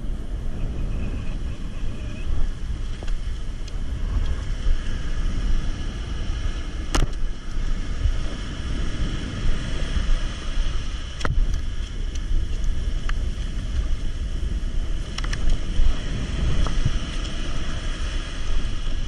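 Ocean surf washing up the beach with wind buffeting the microphone: a steady rushing noise with a strong low rumble. Three sharp clicks stand out along the way.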